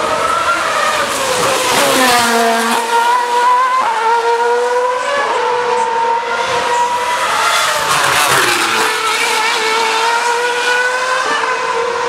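2013 Formula 1 cars' 2.4-litre V8 engines screaming at high revs as they pass along the track. The pitch falls steeply about two seconds in, then holds high with a few small steps up and down.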